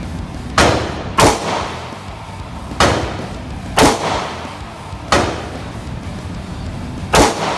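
Six pistol shots at uneven intervals, each a sharp crack with a short echo from the indoor range's walls.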